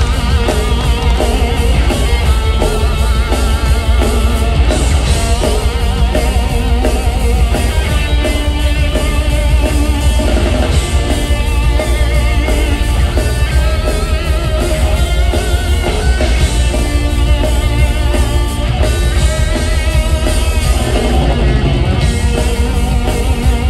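Live rock band and orchestra playing loud, epic music: electric guitar and drum kit over a heavy bass, with orchestral strings.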